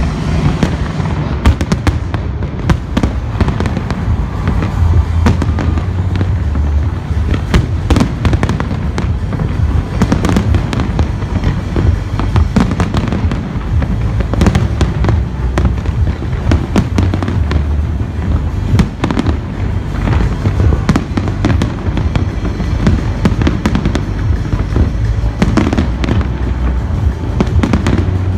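A large fireworks display going off continuously: a dense run of sharp bangs and crackles with no let-up. Loud music with a heavy bass plays underneath.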